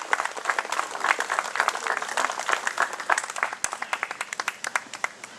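Crowd applauding: many hands clapping, thinning out and dying away near the end.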